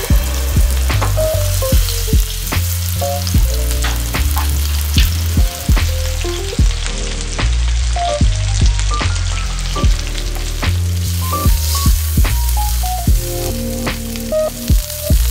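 Pepper-crusted beef steaks searing in hot oil in a stainless steel frying pan, sizzling steadily, with background music playing under it.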